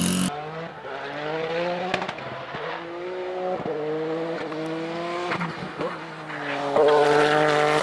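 Dacia Duster No Limit race car's engine accelerating hard along the track, its pitch climbing and dropping sharply at each of three quick upshifts. It grows louder near the end as the car comes closer.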